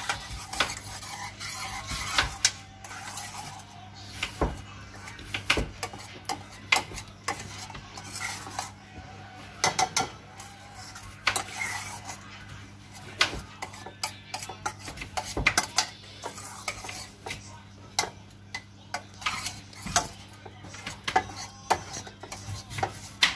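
Metal spoon stirring and scraping thick sauce in a stainless steel saucepan, with irregular clinks of the spoon against the pan's sides and bottom. A steady low hum runs underneath.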